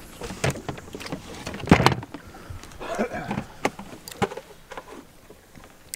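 Several knocks and clunks of gear being handled in a fishing boat, the loudest a heavy thump just under two seconds in.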